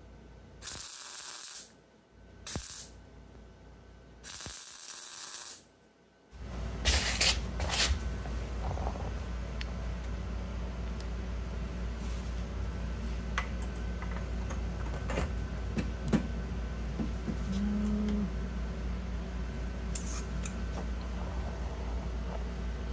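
MIG welder laying three short tack welds on the exhaust silencer's end cap: brief crackling hiss bursts, the longest about a second, with near silence between. After about six seconds a steady low hum takes over, with scattered clicks and knocks.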